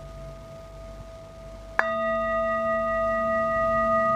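Brass singing bowl ringing faintly, then struck once with a mallet a little under two seconds in, sounding a fresh, louder ring with a low hum and several higher overtones that sustains steadily.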